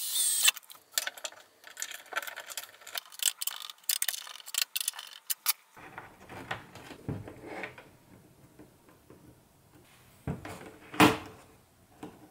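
A cordless drill boring a screw hole through the cabinet wall stops about half a second in. Light clicks and taps of small parts being handled follow, then a few knocks as the switch is fitted, the loudest a sharp knock about 11 seconds in.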